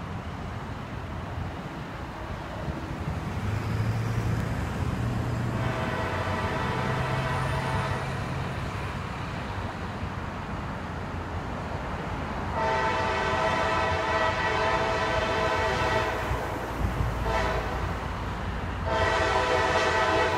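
Freight locomotive air horn sounding the grade-crossing signal as the train approaches: two long blasts, one short, then a long one that is still going at the end. A low rumble runs underneath.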